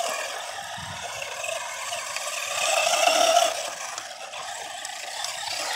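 Force RC Outbreak 4WD electric RC monster truck driving over dirt: a motor and gear whine with tyre scrape and rattle, swelling louder about three seconds in and then easing off. It is running on its stock nickel-metal hydride pack near the end of its charge, with its speed already dropping.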